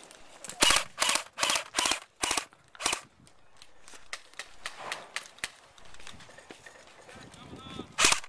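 Airsoft AK-47 electric rifle firing single sharp shots: about six in quick succession, roughly two a second, then two fainter ones, and one more loud shot near the end.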